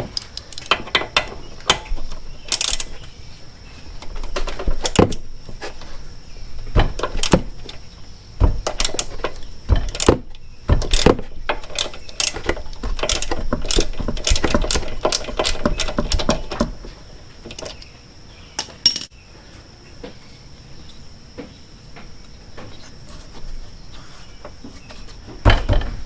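Wrench on a motorcycle's rear axle bolt, making irregular metallic clicks and clinks as the bolt is worked loose and unwound. The clicks come thick and fast at first, then thin out, with a louder knock near the end.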